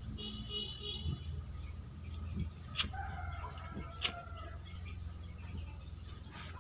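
A rooster crows once, about three seconds in, over a steady high drone of insects. Two sharp clicks of a gas lighter come just before and just after the crow.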